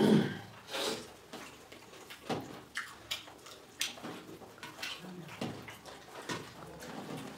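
Eating by hand from steel plates: fingers mixing rice and curry and chewing, heard as scattered short soft clicks and smacks, the loudest right at the start.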